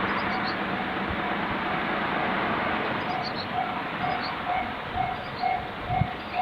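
Japanese railway level-crossing warning bell starting up about three seconds in: a short electronic two-tone ding repeating about twice a second, warning of an approaching train. It sounds over a steady rushing background noise.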